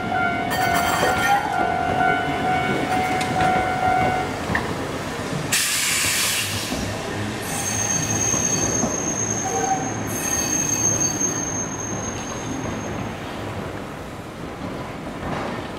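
Railway crossing warning signal ringing as a Hankai tram passes, stopping about four seconds in. A loud hiss follows around six seconds, then a high, steady squeal of the tram's wheels on curved track lasting several seconds, over the low rumble of the tram.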